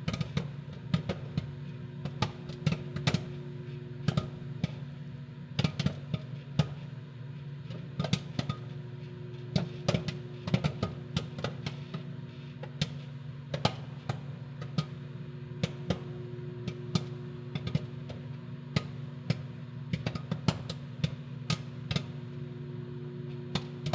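Microwave popcorn popping inside a running microwave oven: sharp, irregular pops, several a second, over the oven's steady hum.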